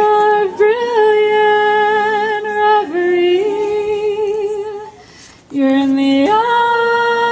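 A woman singing solo and unaccompanied, holding long notes with a slight vibrato. She pauses briefly about five seconds in, then comes back on a lower note and rises again.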